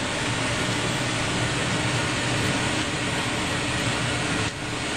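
Steady rushing noise with a low hum from the kitchen stove, with the burner or hood running while oil heats on a high flame.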